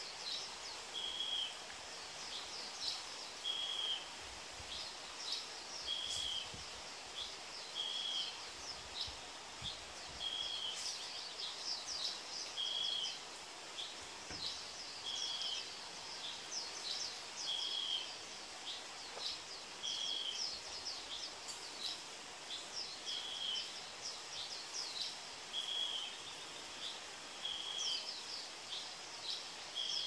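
Birds calling in a dawn chorus: one bird repeats a short, even note about every two seconds while others chirp quickly at a higher pitch, over a steady hiss.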